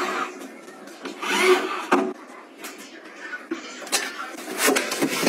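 Handling noises of a toilet seat and a bin: clatter and rustling of tissue paper being pushed into the bin, with a few sharp clicks near the end.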